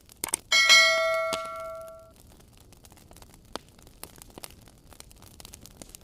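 A single ringing metallic clang about half a second in, fading away over roughly a second and a half, over the scattered crackling pops of a wood fire.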